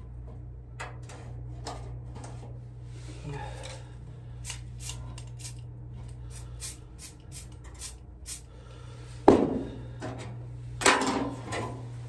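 Hand tools working a thin sheet-metal patch panel on a workbench: a run of short scraping and clicking strokes on the metal, with two louder clunks about nine and eleven seconds in, over a steady low hum.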